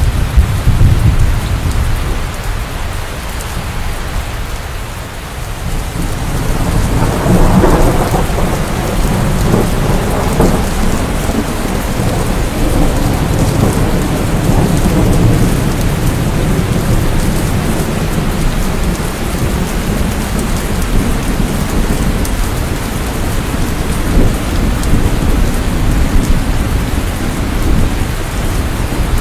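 Steady rain with rolling thunder: a low rumble dies away just after the start, then a louder peal about seven seconds in rolls on under the rain.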